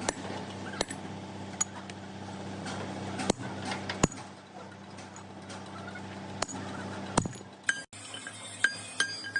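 Sharp metallic clinks and taps, a few seconds apart, over a steady machine hum. Near the end the hum drops out and is replaced by short, bright ringing pings.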